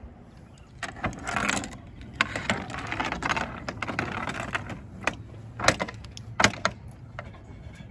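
Aluminium extension ladder dragged across a slate roof, scraping and clattering in uneven bursts, with several sharp knocks near the end.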